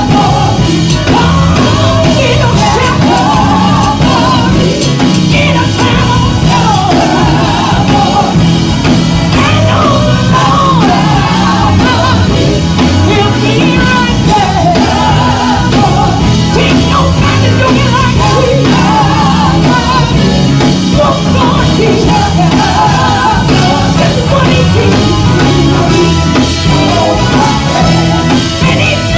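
Live gospel music: a women's vocal group singing over an electric guitar and drum kit, loud and steady without a break.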